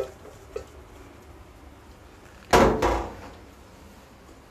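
One loud clunk about two and a half seconds in, likely the emptied stainless-steel bowl being set down by the sink, with faint handling noise before it.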